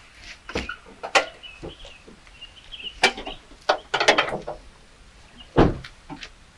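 Irregular metallic clicks and knocks of hands working in a stalled car's engine bay under the raised hood, with one heavier thump about five and a half seconds in.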